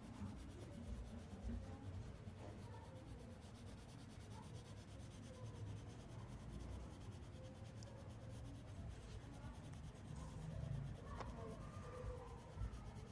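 Colored pencil rubbing back and forth on paper in quick shading strokes, faint.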